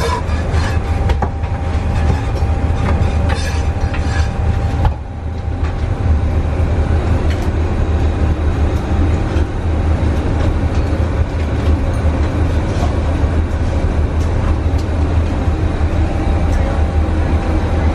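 Steady, loud low roar of roast-meat shop kitchen background noise, with a few faint clicks and clinks scattered through it.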